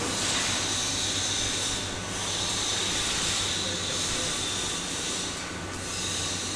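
CNC sheet-metal cutting machine cutting, a steady hiss over a low hum that dips briefly twice.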